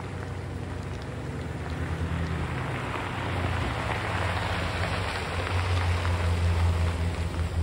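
Chevrolet Silverado 2500HD pickup rolling slowly up over wet gravel, its engine running low and steady and getting louder as it nears, with tyre noise on the gravel and rain falling.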